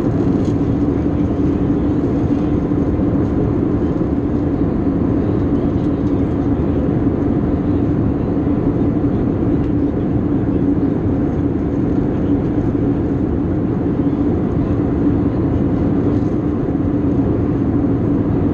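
Steady cabin noise of an Airbus A320-232 in flight, heard from a window seat over the wing: rushing airflow over the fuselage and the drone of its IAE V2500 engines. A steady low hum and a faint high whine run through it.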